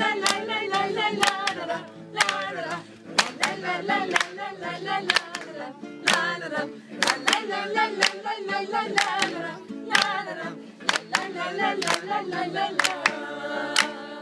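Acoustic guitar played with several voices singing a Turkish love song together, with sharp beats keeping time about twice a second.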